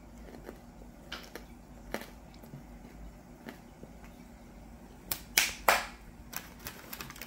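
Freeze-dried watermelon gummy candy crunching as it is chewed: scattered sharp, crisp crackles, with a louder run of them about five seconds in.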